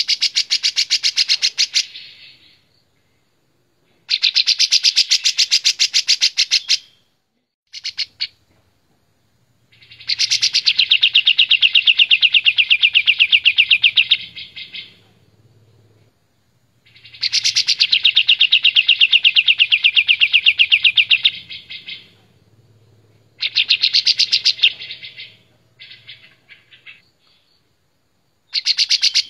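Kapas tembak bulbul singing loudly in long phrases of rapid, closely repeated notes, each phrase a few seconds long with short pauses between. Near the end come a few shorter snatches of song.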